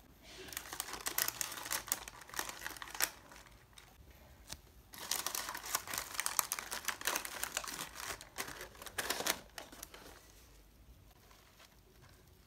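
Paper and cardboard rustling and crinkling as a small cardboard box with paper filling is folded shut, with sharp little crackles, in two busy stretches of handling and quieter handling near the end.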